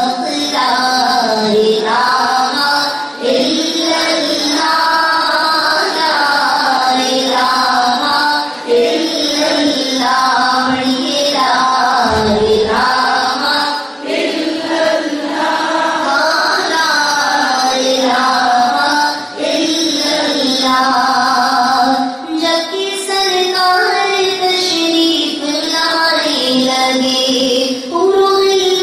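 A woman singing a naat, an Islamic devotional song in praise of the Prophet, as a solo voice in long, gliding phrases with short breaks for breath.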